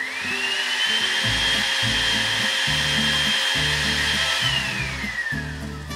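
Countertop glass blender running, blending a thin orange-juice mixture. Its motor whine rises in pitch as it spins up over the first second, holds steady, then falls away as it winds down over the last second and a half.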